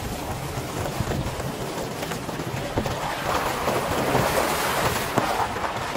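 Vehicle tyres crunching over gravel, then splashing through a shallow stony creek from about three seconds in, water spraying off the wheel. Wind rushes over the microphone.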